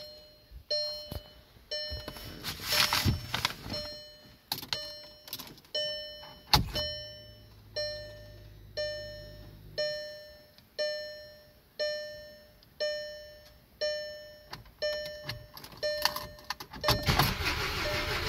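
Volkswagen CC instrument-cluster warning chime sounding with the ignition on, a bell-like ding repeating about once a second. About six and a half seconds in there is a thump followed by a low hum for a few seconds, and near the end the freshly swapped engine cranks and starts into steady running.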